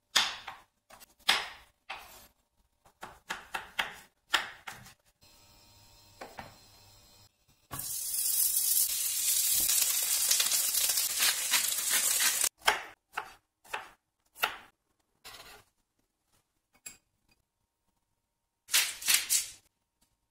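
A knife cutting through a zucchini onto a wooden cutting board in a string of sharp knocks. Then zucchini slices sizzle in oil on a hot grill pan for about five seconds. A few more knocks follow, and near the end a spoon clinks briefly against a small glass bowl.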